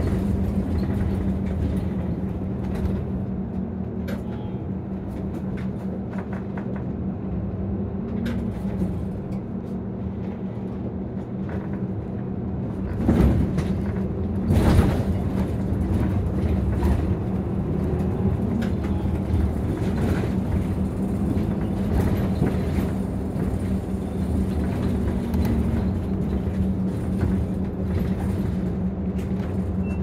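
Inside a Nissan Diesel ADG-RA273MAN city bus: the diesel engine running with a steady drone, heard from the passenger cabin. Two short thumps about halfway through, a second and a half apart.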